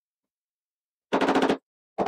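Two short bursts of rapid, rattling impacts, one about a second in and another starting at the very end, with silence before them.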